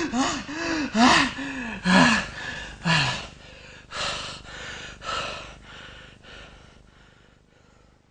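A man's voice straining with effort: a run of short pitched grunts, about two a second, then heavy gasping breaths about a second apart that grow fainter and die away near the end.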